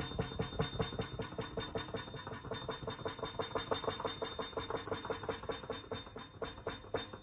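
Grand piano action of a DIY MIDI controller clattering under fast repeated keystrokes, about seven knocks a second, with a faint steady high whine underneath. The knocking stops just before the end.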